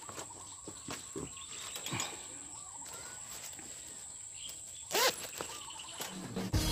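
Rural outdoor ambience with a steady high-pitched insect drone and scattered light knocks, with a brief louder call-like sound about five seconds in. Music starts at the very end.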